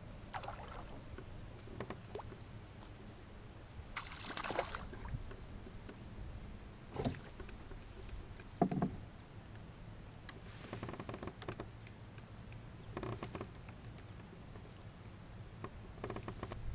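Handling noise from a fishing kayak as an angler fights and lands a fish on rod and reel: scattered clicks and rustles, a short rushing noise about four seconds in, and two dull knocks a little over halfway through.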